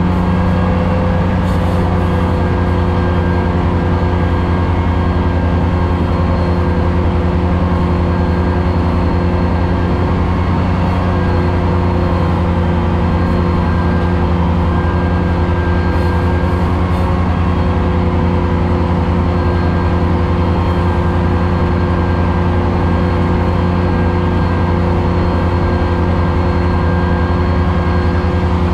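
Ventrac 4500Z compact tractor's engine running at a steady speed while it mows tall grass with its 72-inch finish mower deck, heard from inside the enclosed cab. A steady drone with no change in pitch or loudness.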